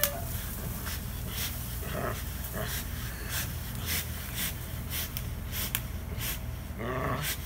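A dog snorting and breathing hard through its nose in short, irregular bursts while it hangs from a tree branch gripped in its teeth.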